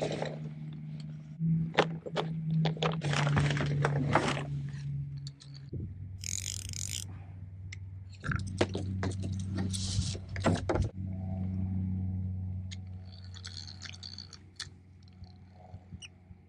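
Fishing gear being handled in a kayak: a fishing rod and tackle clicking, rattling and scraping against the hull in irregular bursts, over a steady low hum.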